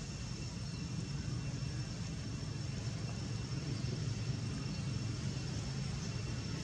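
Steady low rumble with a faint, steady high-pitched tone above it.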